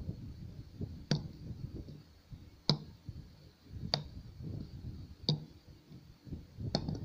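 Five sharp clicks, about one every second and a half, over a faint low background hum.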